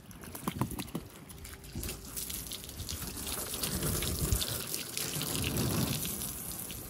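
Garden hose spraying water by hand onto a car's painted body, the water splashing and spattering off the panels onto the driveway; it grows louder from about two seconds in.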